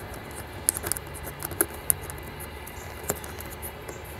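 Fingers handling and brushing the camera, giving a scatter of light clicks and scratches over a faint low hum.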